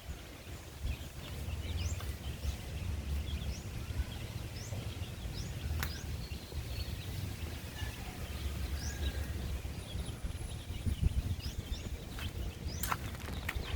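Small birds chirping in short rising notes over a steady low rumble, with a few light clicks.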